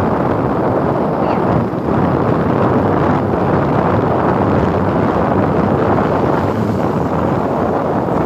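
Wind rushing over the microphone of a camera carried on a moving vehicle, with steady road and engine noise underneath.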